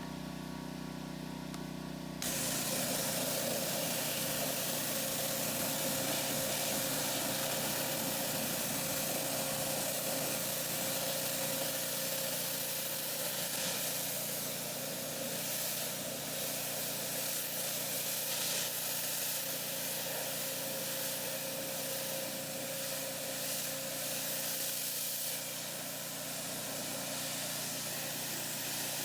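Pressure washer running, then its trigger is pulled about two seconds in and the water jet starts spraying with a loud, steady hiss over the hum of the washer's motor.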